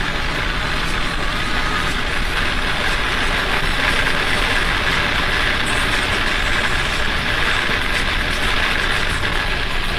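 Nissan 300ZX Twin Turbo's V6 running at highway speed, heard from inside the cabin as a steady drone mixed with road and wind noise.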